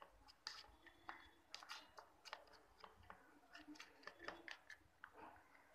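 Plastic spoon stirring white glue and water in a plastic bowl: faint, irregular scrapes and clicks of the spoon against the bowl.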